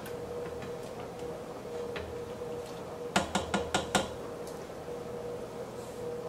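A stirring utensil knocking against a stainless steel pasta pot: a quick run of five or six sharp clinks about three seconds in, over a steady faint hum.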